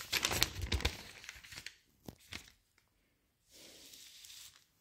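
Pages of a paper promotional flyer being turned and rustled. The rustle is loudest for the first second and a half, followed by two short crackles and a softer rustle near the end.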